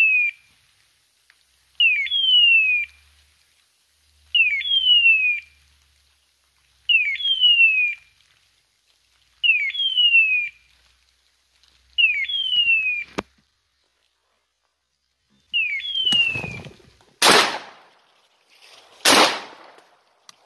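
A hunting dog's electronic beeper collar sounds its point-mode signal, a short chirp followed by a falling screech, repeated evenly about every two and a half seconds. This is the sign that the dog is on point. The signal stops near the end, where two loud bangs about two seconds apart follow, shotgun shots at the flushed bird.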